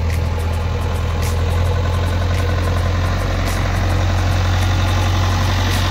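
Engine idling steadily with a deep, even hum.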